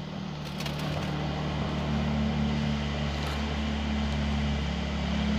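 Mercedes-AMG C43's 3.0-litre twin-turbo V6 idling steadily at about 1,000 rpm just after starting up, with a few light clicks about half a second in.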